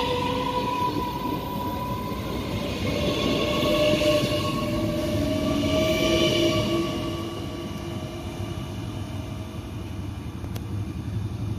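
A Västtrafik X53 electric multiple unit pulling out and accelerating past, its traction motors whining with several tones that rise slowly in pitch over the rumble of the wheels on the rails. After about seven seconds the sound drops as the end of the train passes and it pulls away.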